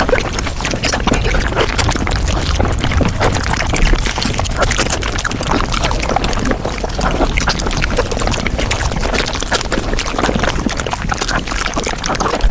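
Close-miked mukbang eating of a mango dessert played at five times speed: a dense, unbroken stream of wet chewing and slurping clicks.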